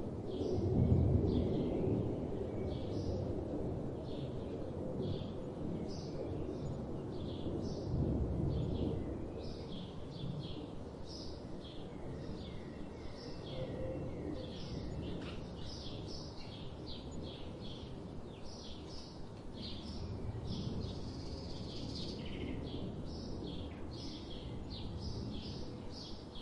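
Small birds chirping in quick, short notes, more and more of them towards the end, over a low background noise that swells briefly about a second in and again around eight seconds.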